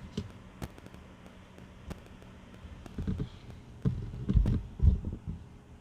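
Knocks and thumps of a steel exhaust header and its cardboard packaging being handled, with light clicks at first and a cluster of heavier thumps near the end.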